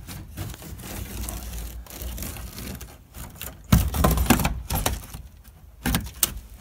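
Utility knife cutting and scraping through caulking along the edge of an RV window frame. Scattered scraping and handling noise, then a cluster of loud sharp scrapes and clicks a little past halfway, and two more sharp clicks near the end.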